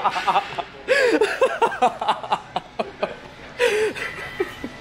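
Men laughing in short, broken bursts of chuckling.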